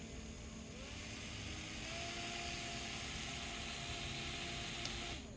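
Small DC fan motor running with a whine that rises in pitch about a second in as its speed is turned up with a potentiometer, holds steady, then falls away near the end as it slows.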